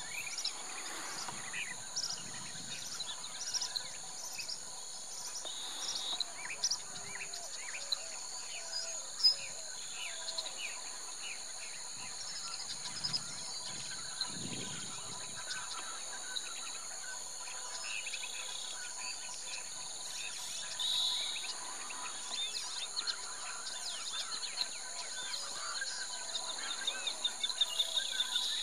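Outdoor bush ambience: insects keep up a steady, high, even drone while birds chirp and call in short notes throughout, with one sharp click about nine seconds in.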